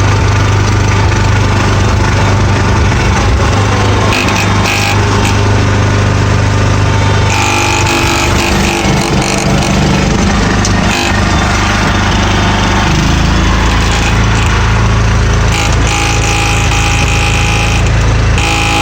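John Deere 300 hydrostatic garden tractor running at full throttle, a steady mechanical drone with a grinding noise from the drive, where the driveshaft is suspected. The sound shifts in character about a third of the way in and again later, as the drive load or lever position changes.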